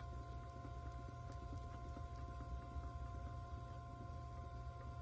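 Electric pottery wheel running at a steady speed with a low rumble and a steady motor whine while clay is thrown on it.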